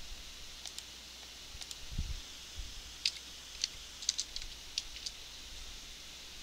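Scattered computer keyboard and mouse clicks, a dozen or so sharp ticks clustered from about three to five seconds in, as a number is typed into a field. A low thump comes about two seconds in, over a faint steady hum and hiss.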